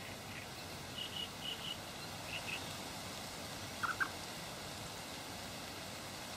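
Short bird calls over a steady outdoor hiss: a few high chirps in the first couple of seconds, then two louder, lower notes about four seconds in.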